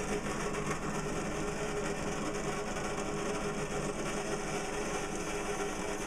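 Small electric power tool motor running steadily with a constant hum and whine, switched on just before.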